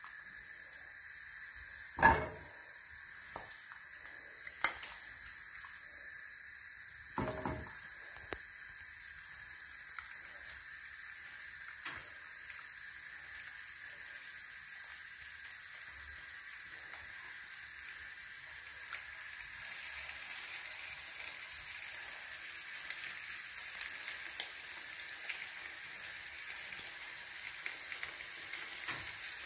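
Marinated chicken legs frying in a pot: a faint sizzle that grows louder through the second half. Two sharp knocks early on, with a few small clicks.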